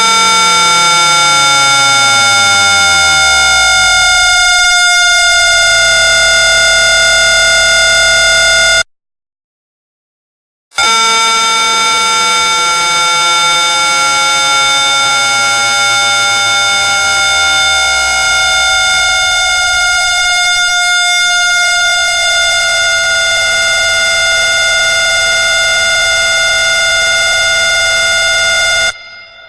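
Scary siren sound effect: a loud, sustained horn-like wail made of several tones, some gliding together toward one pitch. It sounds for about nine seconds, stops for about two, then sounds again for about eighteen seconds and cuts off suddenly.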